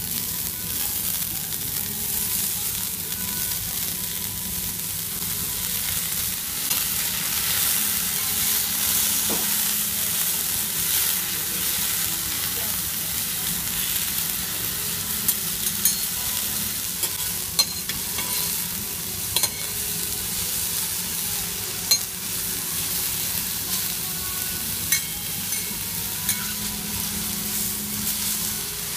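Enoki and shimeji mushrooms sizzling steadily on a hot flat iron griddle. Metal spatulas turn them, giving sharp clicks against the plate, several in the second half.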